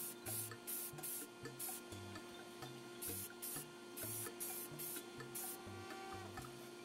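Short bursts of spray-paint hiss, often two or three a second, as plastic model parts are sprayed, over background music with a stepping bass line.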